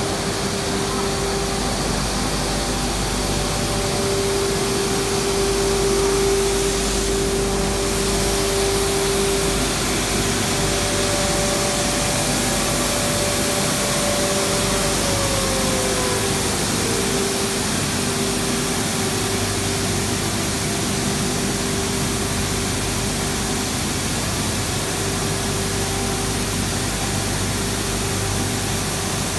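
Roller-conveyor shot blasting machine running: a steady mechanical hum and hiss from its motors and fans, with a few held tones. About halfway through, one tone slides down in pitch.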